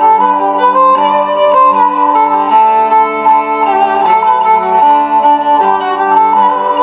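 Background music led by a bowed string melody, with held notes that change every second or so.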